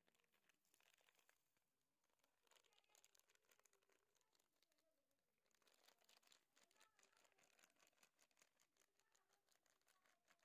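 Faint crunching of a cat chewing dry kibble, with the crinkle of a plastic food packet brushing against it, coming in bursts of rapid clicks with short pauses.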